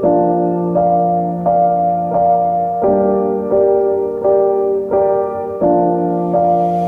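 Background piano music: gentle chords struck evenly about once every three quarters of a second, each note left to ring.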